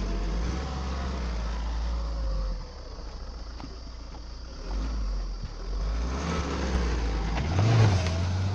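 Mahindra Scorpion-N SUV's engine pulling through loose dirt and mud: a low hum that eases off a few seconds in, builds again, and revs up near the end as the rear tyre spins and throws up dirt with a rushing spray.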